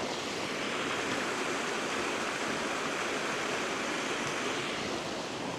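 Water rushing steadily down a small cascade in a rocky stream.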